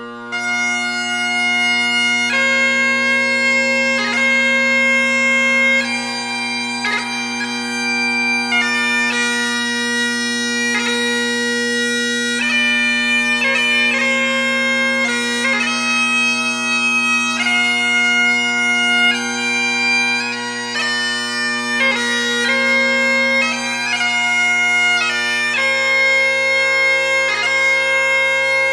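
Highland bagpipes playing a tune: a continuous drone under a chanter melody that moves between held and quick notes.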